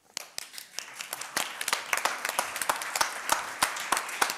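Small audience applauding: many hands clapping, starting suddenly and building over the first couple of seconds.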